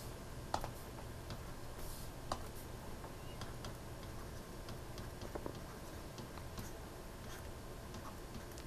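Faint, irregular taps and clicks of a stylus on a tablet screen during handwriting, over a low steady hum.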